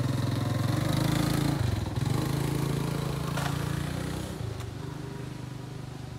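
An engine running steadily nearby, shifting pitch twice, then fading toward the end.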